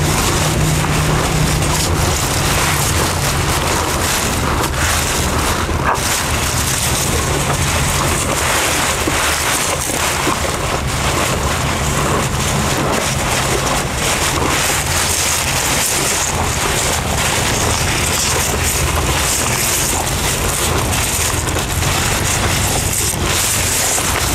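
Young bulls chewing and tearing mouthfuls of fresh elephant grass close to the microphone: a steady run of crunching and rustling of the grass stalks.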